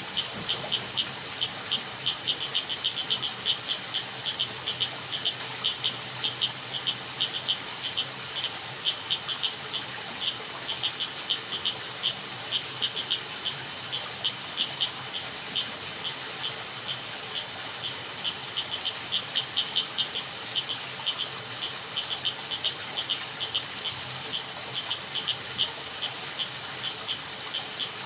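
Frogs calling in a night chorus: short, high chirps repeated irregularly several times a second, over a steady background hiss.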